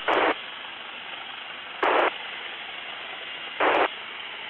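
Steady hiss of a helicopter crew's intercom audio, broken three times by short bursts of static about a quarter second long, spaced nearly two seconds apart.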